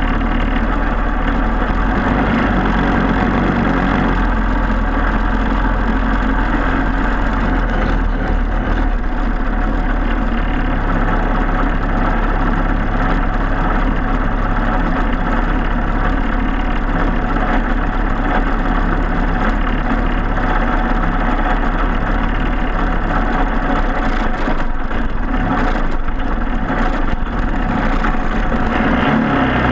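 Single-cylinder four-stroke Briggs & Stratton Animal kart engine running continuously at a steady, loud level.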